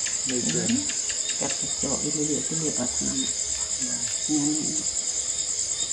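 Crickets chirring at night: a continuous, finely pulsing high trill that never lets up.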